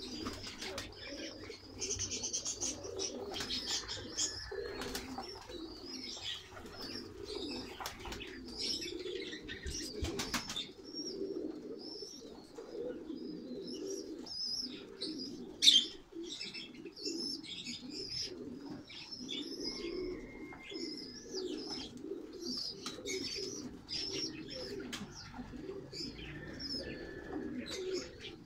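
A flock of domestic pigeons cooing continuously in a loft, with high chirps and wings flapping now and then. A single sharp click stands out a little past halfway.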